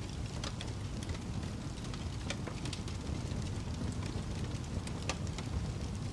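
Wood fire crackling in a fireplace: a steady low rumble of burning, with irregular sharp pops and snaps.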